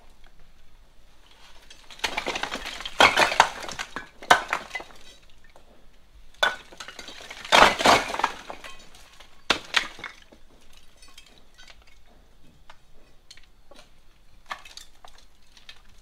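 Bricks being prised out of an old brick wall with an iron bar, clattering and clinking as they tumble down onto brick rubble. Three loud spells of falling bricks in the first ten seconds, then lighter scattered knocks.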